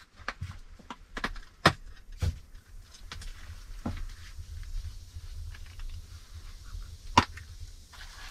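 A series of sharp knocks and clicks at irregular intervals, the loudest about one and a half seconds in and near the end, over a low, steady background rumble.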